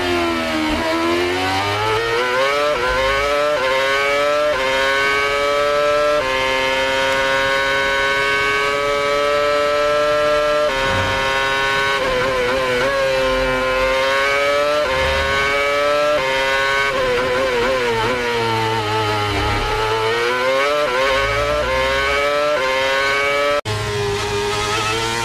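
A Formula 1 car's 2.4-litre V8 engine at racing revs. Its note climbs in steps through quick upshifts, holds steady for a few seconds, then falls and climbs again as it downshifts and pulls away once more. About a second and a half before the end the sound is cut off sharply and picks straight up again.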